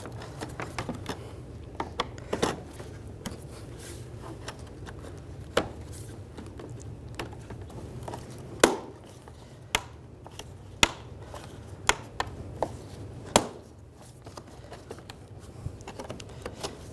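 Plastic clips of a Dodge Dart's lower grille snapping and clicking as the grille is pried out of the bumper cover: about a dozen scattered sharp clicks, spaced irregularly, over a steady low hum.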